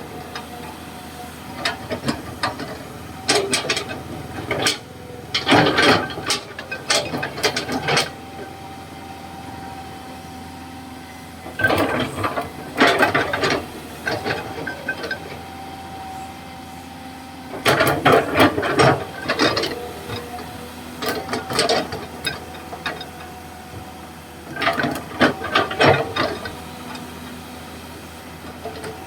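Komatsu PC200-6 hydraulic excavator running steadily while digging, with a faint held whine under the engine and repeated bursts of rattling clanks and knocks from the working arm and bucket, separated by quieter stretches of running.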